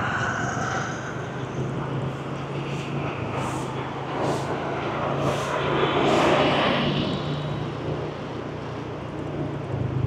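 City street traffic heard from a moving motorbike: a steady low engine hum under the noise of surrounding vehicles, swelling about six seconds in.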